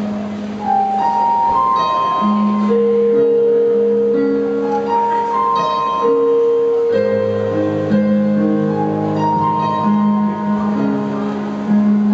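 Slow wedding processional march played on a keyboard: long-held chords under a slow melody, the notes changing every second or two.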